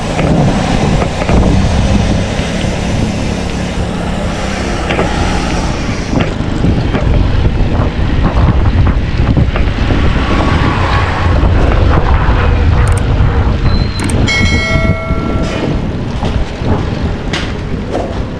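Wind rushing over the camera microphone on a moving bicycle, with tyre and road noise. A steady beep, about a second and a half long, sounds about three-quarters of the way through.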